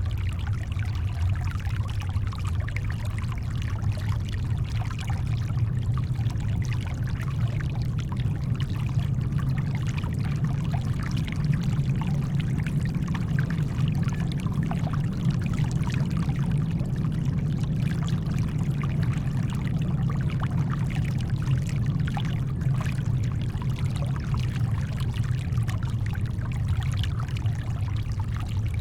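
Steady deep brown noise blended with shoreline water: small splashes and trickles over a constant low rumble, with no waves rising or breaking.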